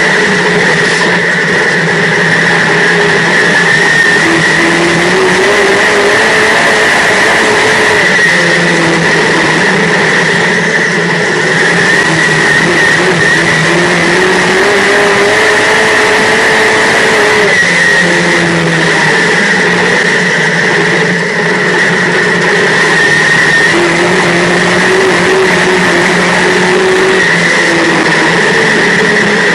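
Dirt modified race car engine under racing load, heard from inside the cockpit: loud and continuous, its pitch climbing and falling several times as the driver gets on and off the throttle.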